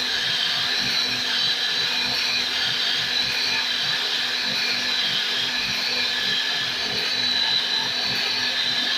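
CNC router spindle running steadily as it cuts wood, with a steady high-pitched whine over a noisy grinding hiss.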